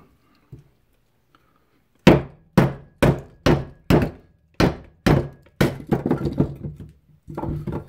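Wooden baton striking the spine of a Condor Final Frontier knife, driving its Scandi-ground blade down through a piece of very dry hardwood: about nine sharp knocks, roughly two a second, starting about two seconds in.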